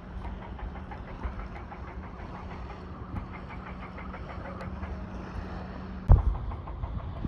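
Rapid, even knocking from a distant construction site, about five knocks a second, over a steady low hum. A loud thump comes about six seconds in.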